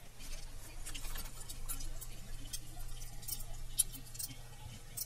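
Light, sharp clicks of a computer mouse and its scroll wheel at uneven intervals, over a faint steady low hum.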